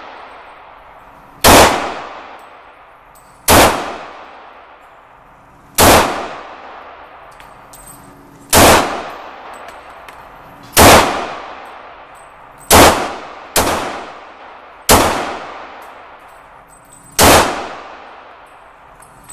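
Glock 22 .40 calibre semi-automatic pistol fired nine single shots at a slow, uneven pace, mostly about two seconds apart, with two quicker shots about thirteen seconds in. Each shot rings out in the echo of an indoor concrete range.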